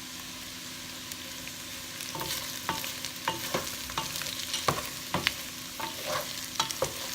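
Cubed potatoes and soy curls sizzling in hot olive oil in a stock pot, a steady hiss. From about two seconds in, a utensil knocks and scrapes against the pot again and again as the pieces are stirred.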